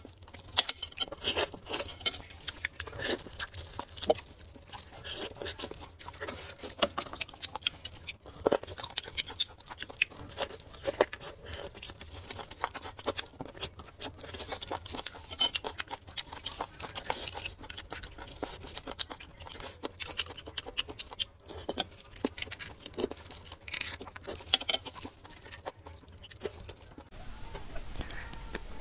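Close-miked eating sounds of beef bone marrow being eaten: a dense, irregular run of wet chewing, lip smacks and sucking clicks.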